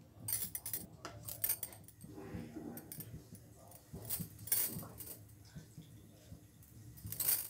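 Scattered light metallic clinks and knocks of steel kitchenware, with a few louder clinks about four seconds in and just before the end.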